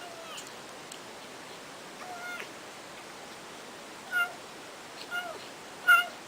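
A cat meowing: about five short, high meows a second or so apart, getting louder toward the end.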